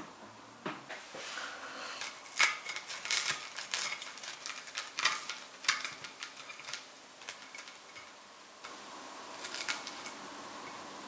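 Knife and fork cutting through a crispy waffle on a ceramic plate: a run of sharp crunches, with the cutlery scraping and clicking against the plate.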